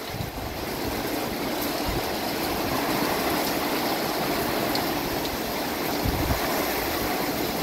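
Heavy hurricane rain pouring steadily, an even rush of water, with a short gust of wind on the microphone about six seconds in.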